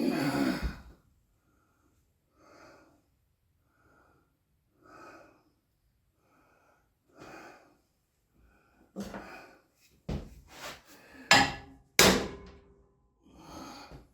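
Scattered knocks and bangs of handling in a workshop, the two loudest close together about eleven and twelve seconds in, with fainter short rustling sounds before them.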